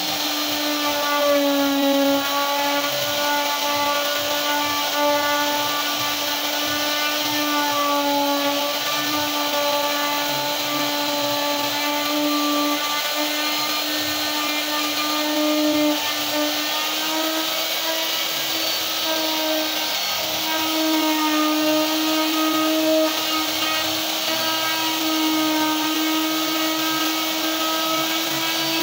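Electric plunge router running steadily at high speed while carving a pattern into wood, a continuous high whine that sags slightly in pitch now and then as the bit cuts.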